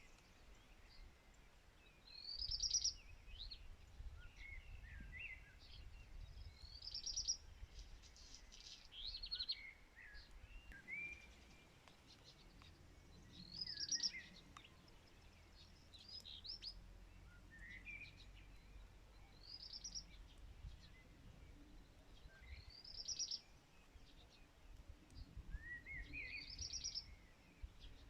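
Songbirds singing: one bird repeats a short, high song phrase every few seconds, with softer chirps from other birds in between.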